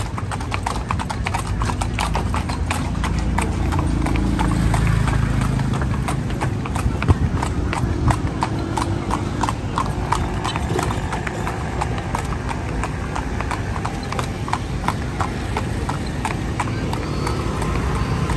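Hooves of a horse pulling a calèche (horse-drawn carriage) clip-clopping on a paved street in a steady, even rhythm, over a low rumble from the road.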